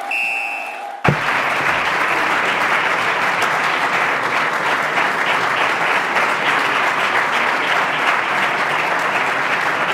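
A brief musical logo sting, cut off about a second in by steady audience applause.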